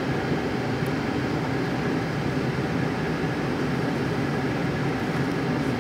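Steady cabin noise inside a Boeing 747-8 airliner on final approach: the even rush of airflow over the fuselage with the engines' low hum beneath it.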